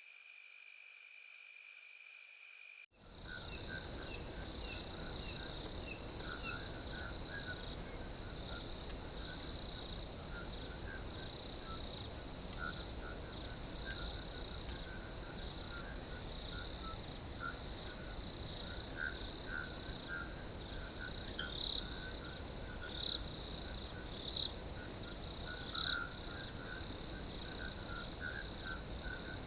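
Crickets trilling steadily in a high continuous chorus, with irregular lower chirps mixed in. About three seconds in, the recording cuts from a clean, pure trill to a field recording with a faint background rumble. About halfway through there is one brief, louder sound.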